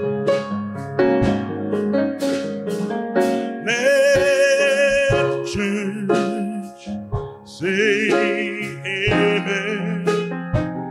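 Live gospel-style music: grand piano chords with a drum kit keeping time, and a man singing two long held notes with vibrato, the first about four seconds in and the second near eight seconds.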